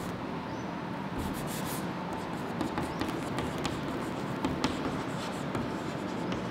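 Chalk writing on a chalkboard: irregular small taps and scratches as a word is written out by hand.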